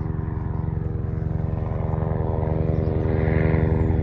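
Helicopter flying overhead, its rotor beating steadily and growing gradually louder as it approaches.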